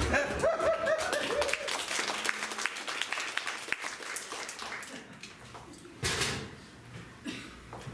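Audience laughing, then clapping for a few seconds, the applause thinning out and dying away about five seconds in. A brief loud burst follows about six seconds in.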